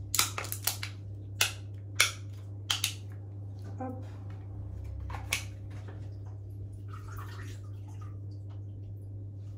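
Paper wrapping being peeled off small dairy portions and a small plastic pot handled: a run of sharp crackles and clicks in the first three seconds, then softer rustling. A steady low hum runs underneath.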